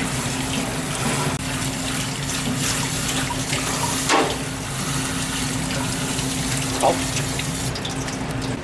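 Tap water running steadily into a sink, over a steady low hum, with two short knocks a few seconds apart.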